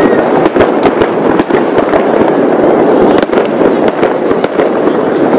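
Fireworks salute: a loud, unbroken barrage of overlapping bangs and crackling, several sharp reports a second.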